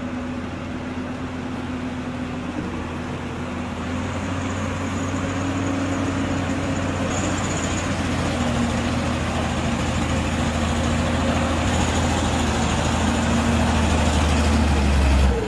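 A vehicle's engine running steadily under load, gradually growing louder, as it hauls on a stump through a block-and-tackle line. It stops abruptly near the end.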